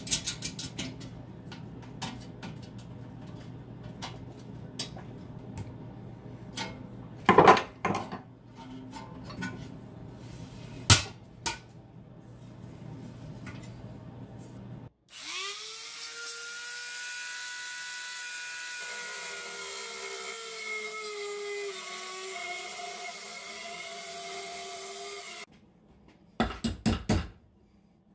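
Scattered clicks and a few sharp knocks over a steady hum. Then a small high-speed power tool spins up with a whine, runs for about ten seconds with its pitch dipping slightly partway as it takes load, and stops abruptly. A quick run of knocks follows near the end.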